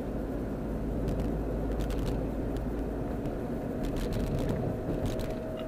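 Car interior noise while driving: a steady low rumble of engine and tyres on the road, with a few scattered light clicks.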